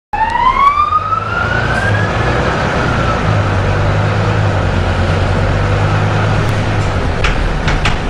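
Volvo B9TL bus's engine cooling fan cutting in: a whine (the 'hoover') that rises steeply for about two seconds, then holds and slowly eases, over the steady low drone of the engine. A couple of sharp clicks come near the end.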